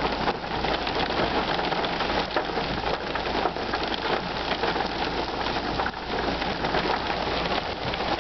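Heavy thunderstorm rain falling on a car, a dense, steady patter of drops.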